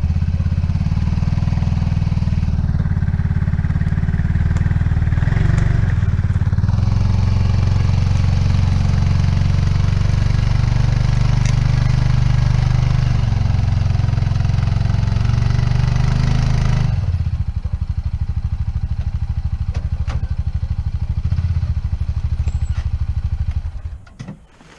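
Engine of a log-handling machine running steadily with a deep, low rumble. It eases down to a lower, quieter running about 17 seconds in, then cuts off sharply near the end.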